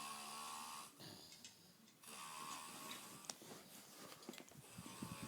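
A sleeping man snoring, with rasping breaths that come every couple of seconds.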